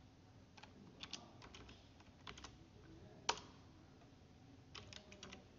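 Faint, scattered keystrokes on a computer keyboard, with one sharper keystroke a little over three seconds in. This is the typing of Vim's command to save the HTML file and close the editor.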